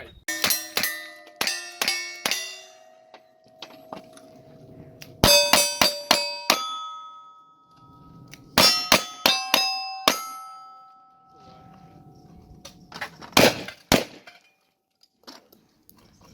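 Steel targets clanging as bullets hit them, in three quick strings of about five to seven hits. Each hit leaves the plates ringing, and the ringing carries on for a second or two after the last hit of each string. About 13 seconds in come two or three loud sharp cracks with no ringing.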